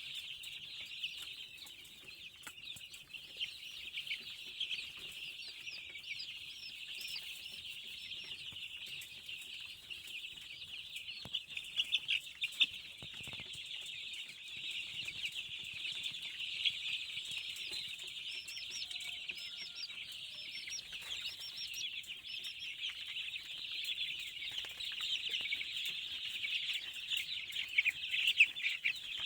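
A large flock of young chickens peeping and cheeping continuously in chorus, with a few sharp taps about twelve seconds in.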